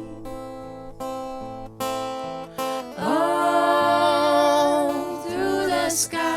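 Live band music: acoustic guitar strumming, with a long held sung note over it through the middle.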